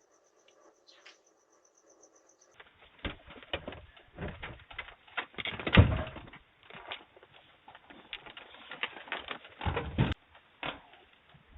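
Irregular knocking, rattling and rustling with several heavy thumps, the loudest about six seconds in, heard through a doorbell camera's tinny microphone.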